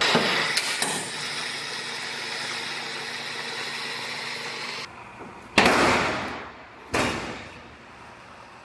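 A power tool running steadily with an even whine while cutting the damaged aluminum bedside off a pickup bed. It stops about five seconds in and is followed by two loud hissing rushes about a second and a half apart.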